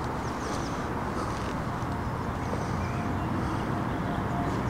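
Steady low outdoor background rumble, with a few faint high chirps about half a second in.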